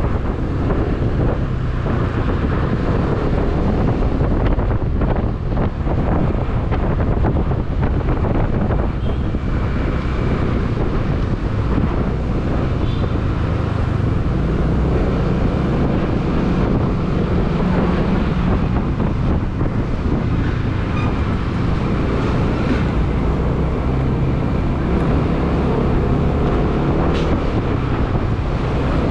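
Motorcycle engine running steadily under way, with wind rushing over the microphone.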